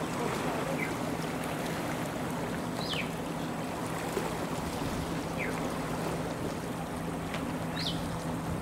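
Waterfront ambience: a steady wash of noise with a steady low hum under it, and three short chirps that fall in pitch, spaced a couple of seconds apart, typical of small birds.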